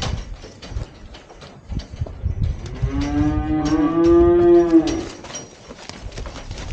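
One of the cattle moos once, a single long call starting about three seconds in and lasting some two seconds, rising slightly in pitch and then falling. Scattered short clicks and knocks come before and after it.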